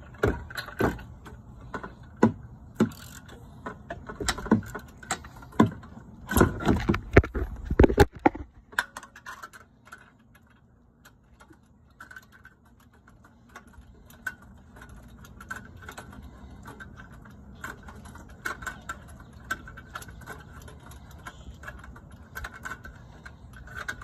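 Ratchet wrench with a 13/16 spark plug socket loosening a spark plug: irregular clicking and metal knocks for the first several seconds, then fainter, lighter ticking as the socket is turned out by hand.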